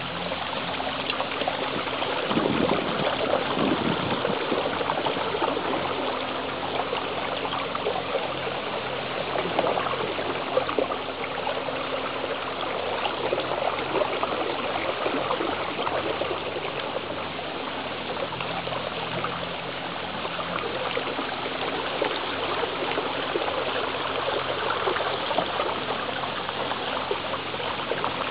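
Pedal boat's paddle wheels churning the water, a steady splashing and trickling.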